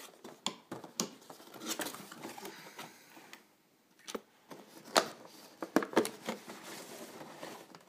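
Packaging of a boxed collectible figurine being handled and opened by hand: irregular clicks, knocks and rustles, with a short quieter stretch a little before halfway and the sharpest clicks near the end.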